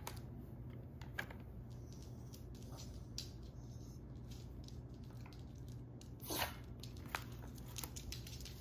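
Bare feet stepping onto and off a plastic smart bathroom scale: scattered faint taps and clicks, with one louder scuff about six seconds in, over a low steady hum.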